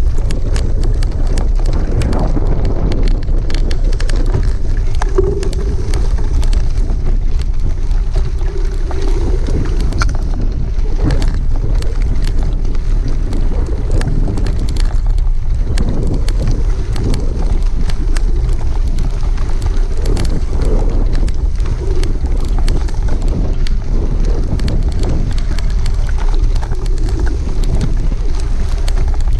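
Wind buffeting the microphone of a handlebar-mounted camera on a riding cargo bike, a steady low rumble, with frequent clicks and rattles from the bike running over a rough grassy track.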